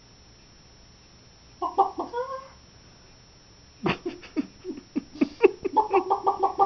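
A person imitating a chicken. One drawn-out pitched call comes first, then a run of sharp clucks that quickens into a rapid string of about seven a second near the end.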